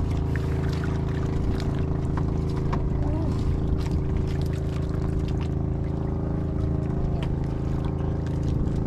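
Outrigger fishing boat's engine running steadily at an even, unchanging speed.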